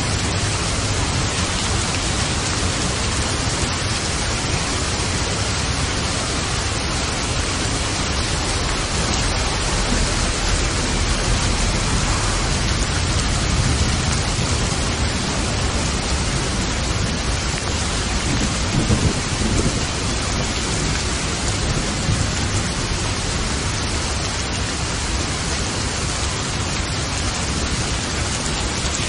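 Steady, heavy rain falling, with a low rumble of thunder swelling about two-thirds of the way through.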